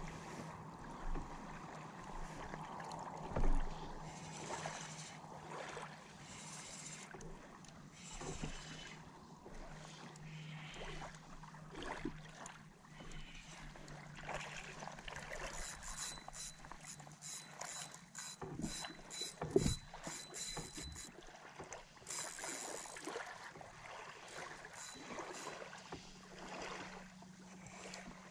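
Water lapping and slapping against the hull of a small boat, with occasional knocks and a steady low hum. A stretch of rapid fine ticking runs for several seconds a little past the middle.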